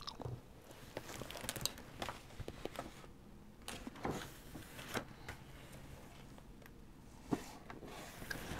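Faint handling sounds of a hardcover picture book: light taps and brief paper swishes as the cover is opened and the pages are turned by hand.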